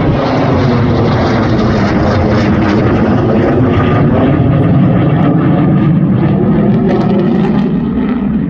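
Panavia Tornado's twin RB199 turbofan jet engines during a slow, low flypast: loud, steady jet noise whose tone shifts slowly as the aircraft passes.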